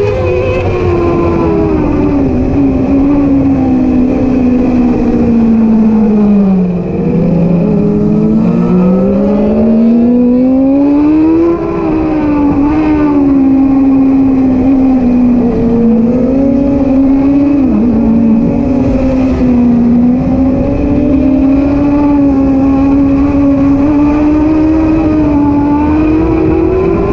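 Middleweight superbike's engine running hard at high revs under racing load. The pitch falls over the first seven seconds, rises to a peak about eleven seconds in, eases and holds fairly level, then climbs again near the end, with rushing wind noise underneath.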